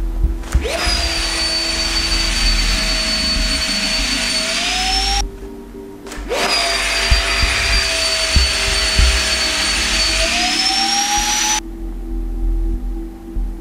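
Electric fan of an Arc'teryx Voltair avalanche airbag pack inflating the airbag, twice. Each run spins up with a quick rising whine, then a steady high whine over a loud rush of air for about five seconds, climbs in pitch near the end and cuts off suddenly.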